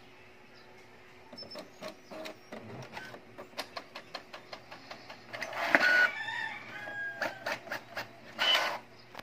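Brother DCP-T700W inkjet printer's mechanism starting a print job after receiving data: a run of quick clicks about three a second, with louder whirring and squeaky chirps about halfway through and again near the end.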